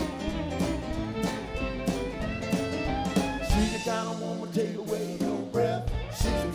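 Live blues band playing an instrumental break, a violin playing lead over electric guitar and drums with a steady beat. The bass drops away for about two seconds past the middle, then comes back.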